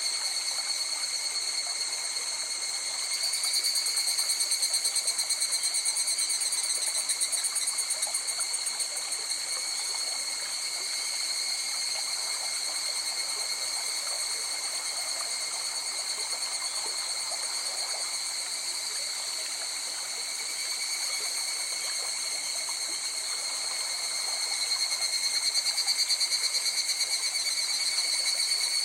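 A river flows steadily under a continuous high, rapid trill from a night chorus of calling animals. The trill swells about three seconds in and again near the end.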